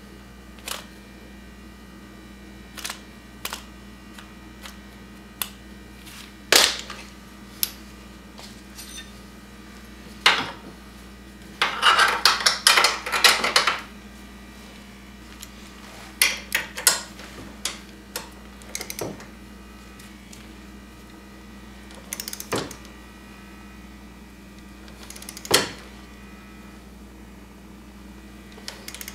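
Metal hand tools clicking and clanking on a suspension bolt as it is tightened with a wrench to torque, with a dense run of rapid clicks about twelve seconds in. A steady low hum runs underneath.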